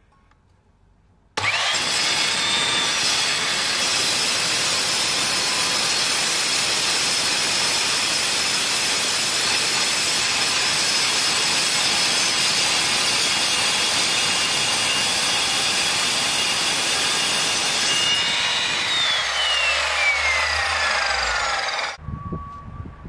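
Evolution crosscut mitre saw with a Rage metal-cutting blade starting up with a rising whine about a second and a half in, then cutting through a 4mm steel door blank with a loud, steady, harsh metal-cutting noise. Near the end the cut finishes and the blade's whine falls in pitch as the motor winds down, before the sound cuts off suddenly.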